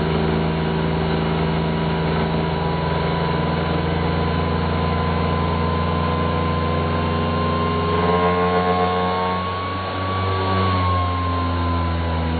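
Handheld wood router running, played back slowed down as a low, steady drone. About eight seconds in the sound changes, and near the end its pitch sags as the bit catches a screw partly sticking up into the routed track.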